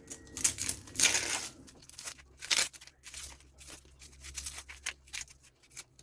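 Dry, papery onion skin being peeled off by hand: irregular crackling and tearing rustles.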